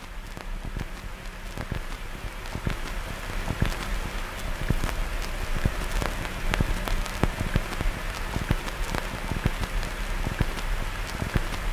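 Static noise: a steady hiss thick with irregular crackles and pops over a low electrical hum, swelling over the first few seconds.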